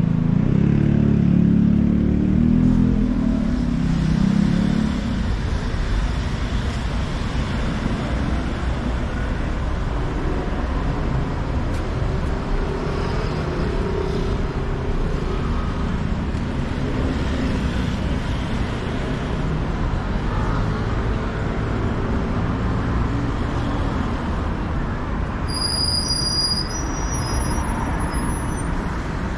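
City street traffic: a steady wash of passing cars, with a heavy vehicle's engine running close by and loudest in the first few seconds. A few short high-pitched tones sound near the end.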